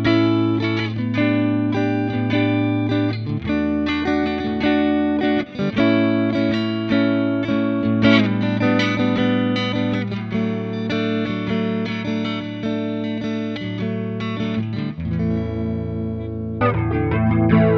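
Chibson Gold Top electric guitar played through an amp, with chords and picked notes ringing over a held low note. The chord changes every second or two.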